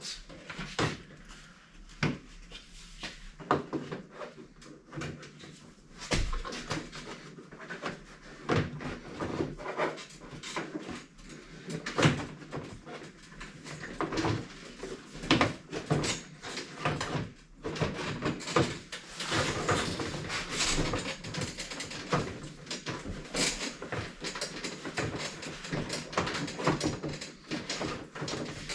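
Irregular clicks, taps and scraping of plastic grille and trim parts being handled, removed and fitted, busier in the second half.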